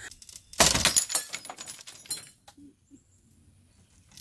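Loud crash of metal and glass about half a second in, then rattling and clinking for about a second and a half, as an old metal-framed glass window sash is worked loose from its opening.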